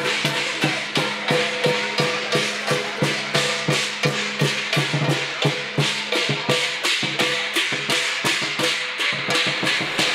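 Background music with a steady percussive beat of about four sharp, wood-block-like hits a second over a held low tone.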